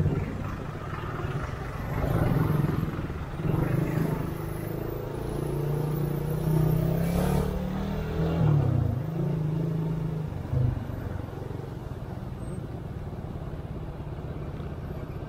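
Motorcycle engine running at low speed in slow traffic, its pitch rising and falling with the throttle. There is a quick drop and rise in pitch a little past halfway, then a lower, steadier run.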